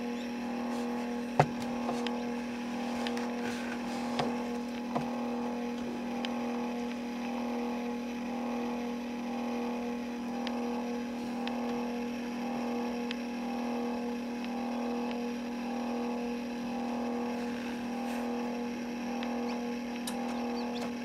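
Steady electric hum of an incubator's fan motor, gently swelling about once a second, with a few sharp clicks, the loudest about a second and a half in.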